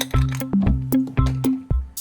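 Upbeat background music with a bouncing bass line and a steady beat of about two notes a second.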